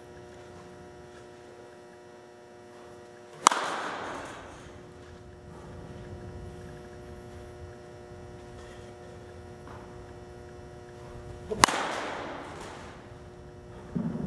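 Two sharp cracks of a baseball bat hitting pitched balls, about eight seconds apart, each followed by a short echoing tail inside the batting cage, over a steady electrical hum. A softer thump comes near the end.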